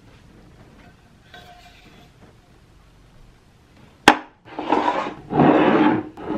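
Glass whisky bottles and a metal flask handled on a wooden table: a sharp knock about four seconds in, then louder rubbing and sliding noise.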